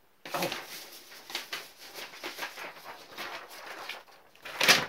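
Rustling and light clicking from things being handled at a desk, with a louder rustle near the end.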